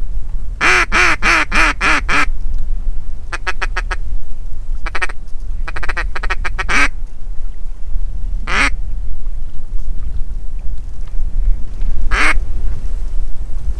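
Mallard hen quacks blown on a duck call: a string of about six falling quacks, then quicker short quacks and a few single quacks spaced out. Strong wind rumbles on the microphone underneath.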